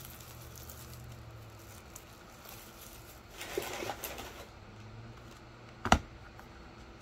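A hockey card box being handled: a crinkling rustle of packaging for about a second midway, then a single sharp knock near the end as the box is set down on the desk, over a faint steady low hum.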